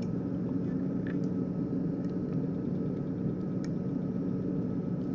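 A steady low mechanical hum from background equipment, with a couple of faint light clicks as plastic housings are pulled off crimped jumper-wire connectors.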